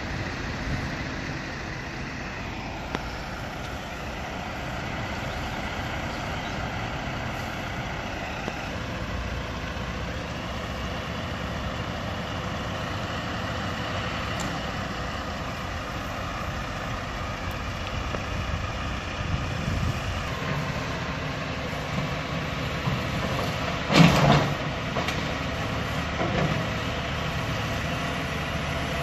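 Heavy diesel engines of a Cat excavator and a dump truck running steadily during a house demolition. About three-quarters of the way through there is a loud crash as debris from the house comes down, with smaller knocks around it.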